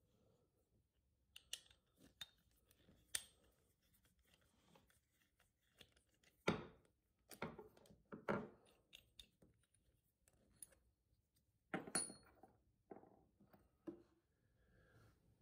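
Scattered small clicks, taps and knocks of a metal magnetic doorstop and its hardware being handled, a few with a brief metallic ring, against near silence.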